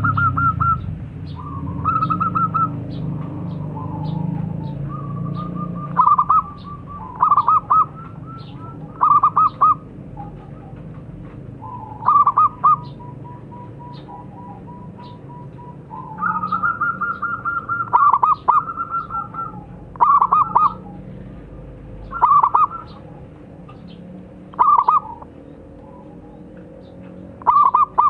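Zebra dove (perkutut) cooing its rhythmic call over and over: short phrases of quick staccato coos and trilled notes, repeated about every two seconds.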